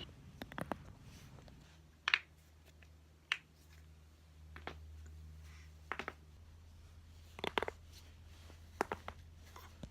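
Joints cracking: about ten sharp pops and clicks at irregular intervals, the loudest about two seconds in and a quick cluster of them about seven and a half seconds in, over a faint low hum.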